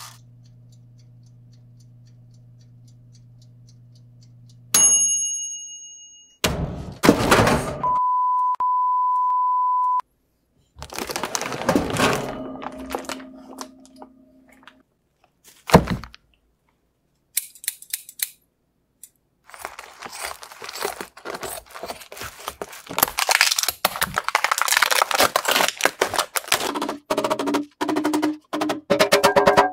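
A low steady hum, a single bell-like ding about five seconds in, and a steady beep lasting about two seconds a little later. From about twenty seconds in comes a rapid string of sharp knocks: a rubber mallet striking the oven-cured carbon fibre part to knock it free of its mould.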